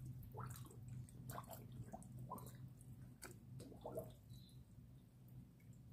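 Faint, irregular wet pops and smacks of koi sucking floating pellet feed off the water surface, over a steady low hum.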